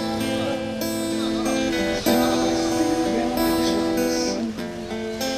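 Acoustic guitar strumming chords live, each chord ringing on, with a fresh strum about two seconds in.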